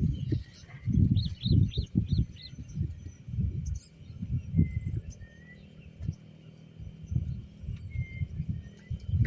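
Birds calling outdoors: a quick run of about five chirps between one and two and a half seconds in, and a few short thin whistles later. Under them run irregular low rumbles and thumps, the loudest sound throughout.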